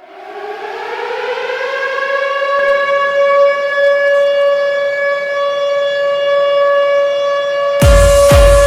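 Ice hockey goal siren winding up, its pitch rising over the first two seconds or so, then holding a steady, loud wail. Near the end the goal song cuts in with a strong thumping beat over the siren.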